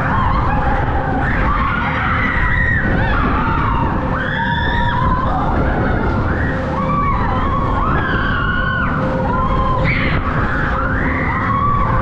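Eli Bridge Scrambler ride running fast, a steady loud rumble of the machinery and rushing air, with riders screaming and shouting over it again and again.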